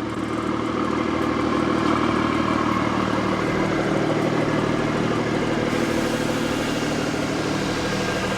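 Car engine idling steadily. A brighter hiss joins a little before six seconds in.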